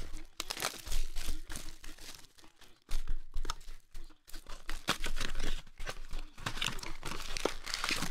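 Plastic shrink wrap being torn and crinkled off a cardboard trading-card box, with the cardboard box and its contents handled, in irregular crackling rustles.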